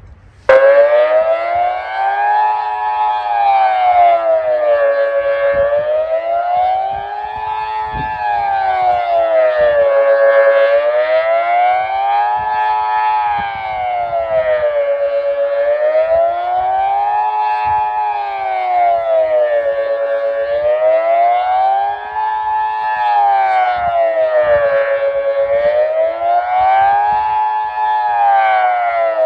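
Kockum Sonics Delta 4 electronic siren, driven by its old grey Delta control unit, wailing in the Swiss general alarm, a tone that rises and falls smoothly about every five seconds with a rough voice. It starts abruptly about half a second in, and wind buffets the microphone underneath.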